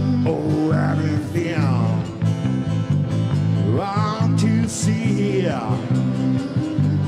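Live band music: a man singing in a wavering, sliding line over electric bass guitar and acoustic guitar accompaniment, with a country feel.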